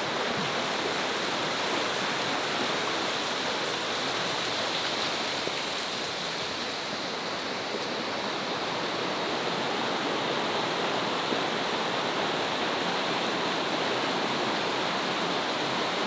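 A river flowing: a steady, unbroken rush of water that holds at the same level throughout.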